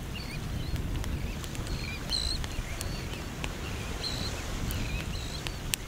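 Night-time beach ambience: a steady low rumble with short, high, wavering chirps scattered irregularly through it and a few faint clicks.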